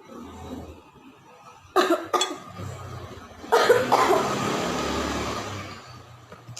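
A person coughing hard after choking on satay: two sharp coughs a little under two seconds in, then a longer coughing fit lasting about two seconds.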